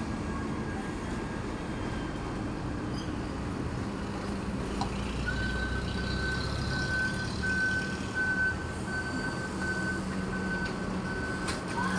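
Vehicle engine rumbling steadily, with a reversing alarm beeping in a regular high tone from about five seconds in.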